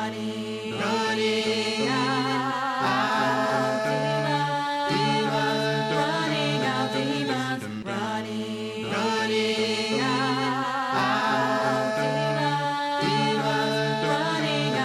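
Vocal music: several voices singing held notes in harmony with vibrato, in short phrases that repeat.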